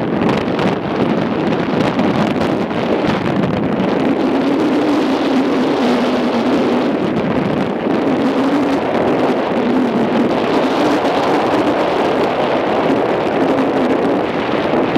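Wind buffeting the microphone as a steady, loud rushing noise over water flowing among ice floes. A faint, low, wavering hum runs underneath from about four seconds in until near the end.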